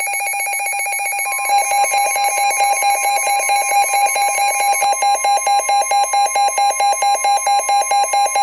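Midland weather alert radios sounding their alarm for a severe thunderstorm warning: rapid, loud electronic beeping. About a second in, a steady high tone joins it, the NOAA Weather Radio warning alarm tone coming over the broadcast.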